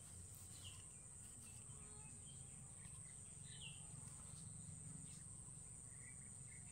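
Faint outdoor ambience: a steady high-pitched insect drone with a few faint, short bird chirps over a low background rumble.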